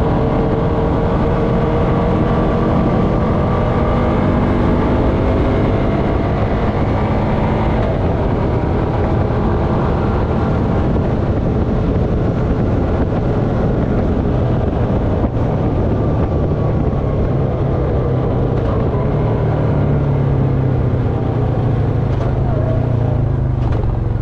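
Honda FourTrax Foreman ATV engine running at cruising speed on pavement, its pitch wandering in the first several seconds and then holding steady.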